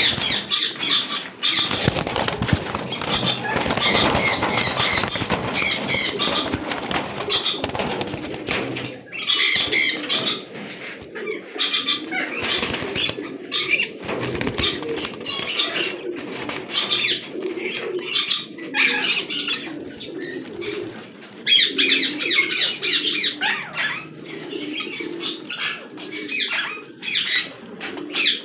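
Domestic pigeons in a wire cage flapping their wings and cooing, with scuffling and sharp knocks throughout and bursts of high chirps.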